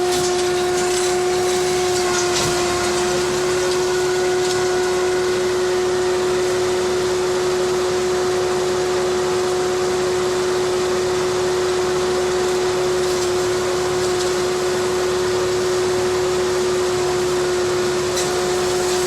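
Kubota ME 9000 tractor's diesel engine driving a Fimaks row-independent forage harvester, running at a constant speed with a steady, unchanging hum.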